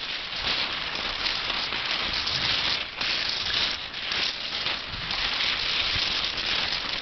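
Madshus cross-country skis hissing steadily over snow as the skier is towed along, the swish swelling and dipping with each glide.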